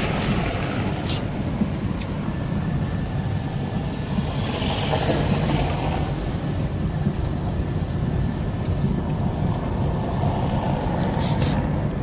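Steady engine and tyre rumble of a car driving on a city street, heard from inside its cabin, with a brief rise in hiss about four seconds in.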